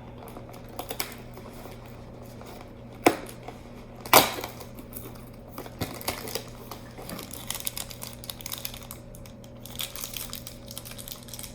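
Hands working a cardboard advent-calendar box: scattered taps, clicks and light crinkling as a door is popped open and the small boxed figure taken out, with two sharper knocks about three and four seconds in.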